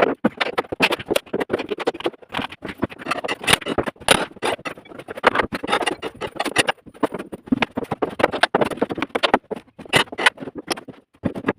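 Irregular knocks, clatter and scraping of wooden formwork boards and props being pried loose and taken down from under a cast concrete slab.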